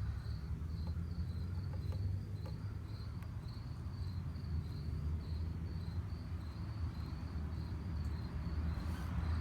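A cricket chirping in an even run of short high pulses, over a steady low hum.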